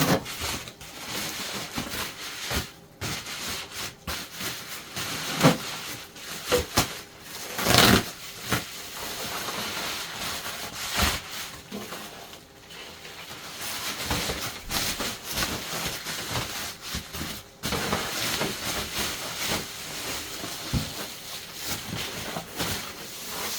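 Packing material rustling and crinkling as a grille is unwrapped from its shipping box, with a few sharper crackles or knocks.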